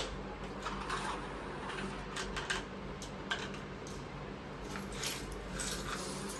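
Light, scattered clicks and rattles of small plastic boxes and metal jewellery being handled and sorted, over a faint steady low hum.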